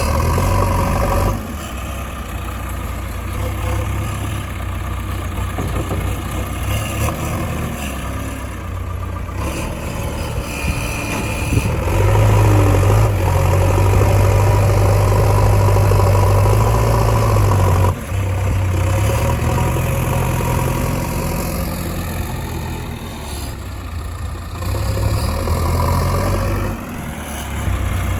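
Diesel engine of a backhoe loader or tractor running steadily. It works harder for about six seconds in the middle and then drops back sharply.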